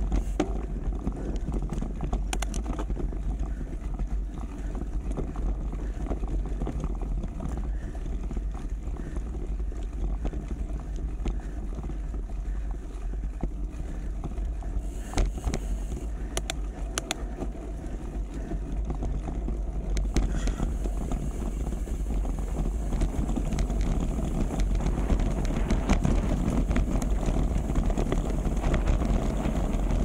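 Wind buffeting the microphone over the rumble of a bicycle riding on rough ground, with a few sharp knocks and rattles; the noise grows louder over the last third.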